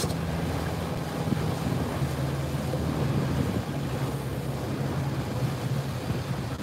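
The engine of a 2003 Parker 21 pilothouse boat running steadily at low speed, a low even hum, with wind on the microphone and water slapping the hull.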